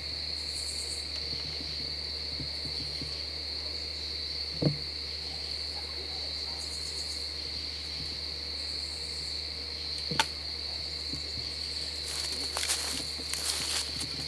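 A steady high trill of crickets, with two sharp knocks about five and ten seconds in, and then footsteps crunching through dry fallen leaves near the end.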